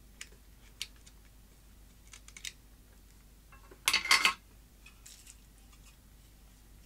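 Handling noise from the soap dispenser's hard plastic motor housing and small DC motors: scattered light clicks and taps, with a louder short clatter about four seconds in.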